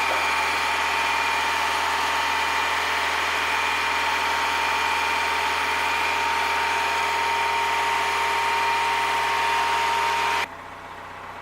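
Mazda Miata four-cylinder engine running steadily while it burns off a Seafoam treatment fed through the intake to cure a hydraulic lifter tick. About ten seconds in, the sound drops abruptly to a much quieter background.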